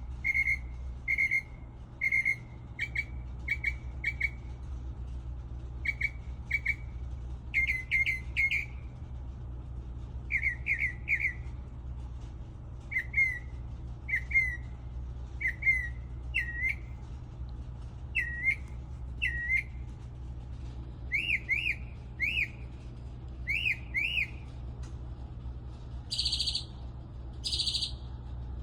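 A bird singing a long series of short whistled notes. It repeats each note shape several times before switching to a new one, and a higher pair of notes comes near the end. A steady low hum runs underneath.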